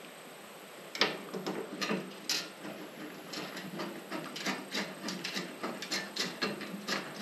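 Quick, irregular clicking and light metallic rattling of small fasteners being handled and fitted into a round metal sump flange on a fuel cell. It starts about a second in.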